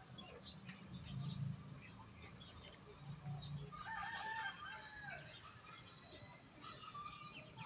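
A rooster crows once, about four seconds in, a pitched call lasting about a second. Small bird chirps and a thin, steady high tone run underneath.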